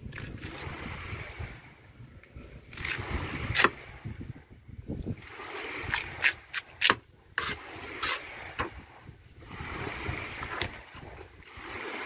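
A fish knife cutting and scraping through a raw tuna loin on a wet cutting board, with several sharp knocks of the blade or fish against the board, over a steady low background rumble.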